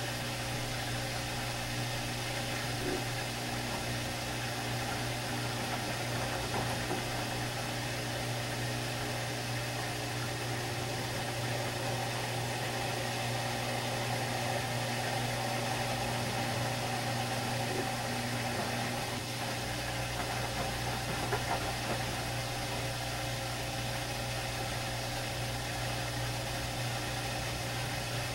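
Samsung WD136 direct-drive front-loading washer-dryer taking in water: a stream splashing into the drum as it turns the wet load, over a steady motor hum. A deeper rumble joins about two-thirds of the way through.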